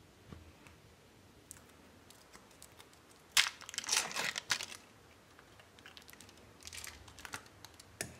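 Foil wrapper of a Kiri cream cheese portion being torn and crinkled open by hand: a loud spell of rustling a little over three seconds in, and a quieter one around seven seconds.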